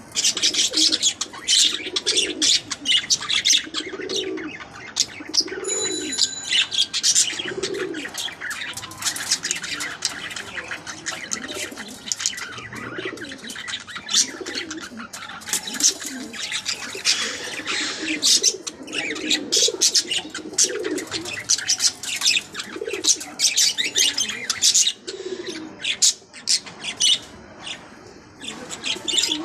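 Birds chirping busily in quick, sharp high notes, over a low cooing call that rises and falls and repeats every second or two.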